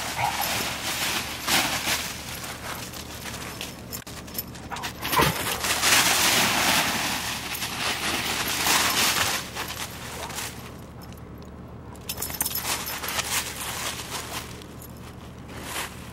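Dry fallen leaves crackling and rustling as a dog runs and roots through them, loudest about five to nine seconds in and dropping off briefly around eleven seconds.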